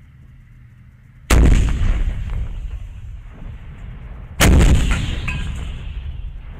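2S1 122 mm self-propelled howitzers firing two shots about three seconds apart. Each is a sharp blast followed by a long rolling tail that fades away.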